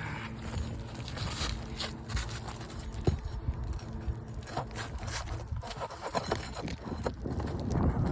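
Scraping and scattered sharp clicks as asphalt roof shingles are worked loose and the nails under them are lifted, with one sharp knock about three seconds in.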